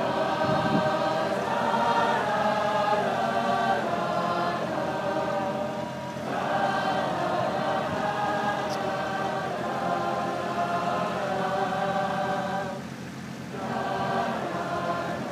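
A large marching band singing a slow chorale in many-part harmony: long held chords, with short breaks between phrases about six and thirteen seconds in.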